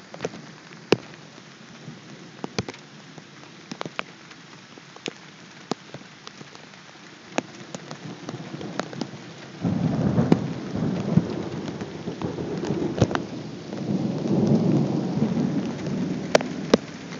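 Steady rain with scattered sharp drop ticks close by. About ten seconds in, a low rumble of thunder comes in suddenly, eases, and then swells again before dying down near the end.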